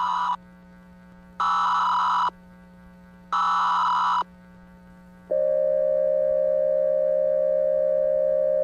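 Simulated Emergency Alert System alert opening: three buzzy data-tone header bursts about a second long, the first ending just after the start, then from about five seconds in a steady single-pitch attention tone. A faint low hum is heard between the bursts.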